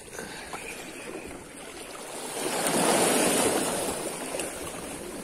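A wave surging in and splashing against breakwater rocks, swelling to a peak about halfway through and then falling back, over the steady wash of choppy water.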